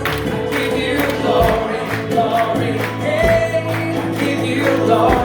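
Congregational worship music: a group of men singing with a band, held sung notes over steady bass and drums.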